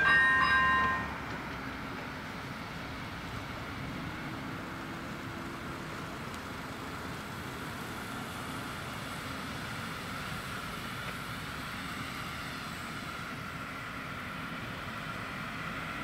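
Electronic level-crossing bell on AŽD 97 warning lights, ringing its repeated two-tone ding for about a second and then cutting off as the barriers are fully down. It leaves a steady background hum of traffic and surroundings that rises slightly near the end.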